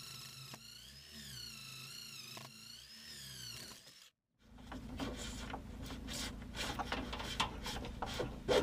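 Cordless drill with a long twist bit boring through a wooden compartment floor, its motor whine wavering up and down in pitch for about four seconds. After a short silence come scraping, rubbing and clicking as cables are worked through the new hole.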